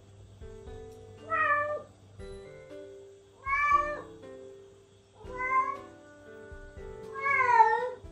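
Bengal cat meowing four times, about two seconds apart, each call rising and then falling in pitch: plaintive calls of a cat left alone, calling for its owner who has gone out of sight. Soft guitar background music plays underneath.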